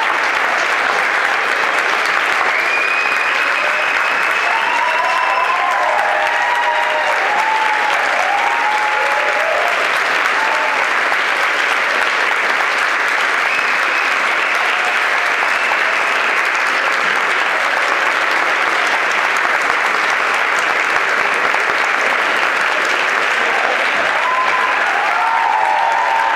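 Sustained audience applause for a choir's curtain call, a dense, steady clapping, with cheers and whoops rising over it a few seconds in and again near the end.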